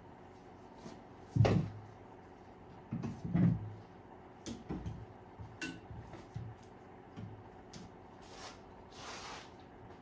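Metal garden pruners clattering and knocking on a tabletop as they are flipped over by hand: a string of uneven knocks, the loudest about one and a half seconds in.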